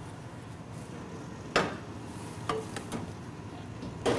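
A few sharp knocks and clicks of kitchen containers and utensils being handled at a stainless steel counter, the loudest about one and a half seconds in, over a steady kitchen background hum.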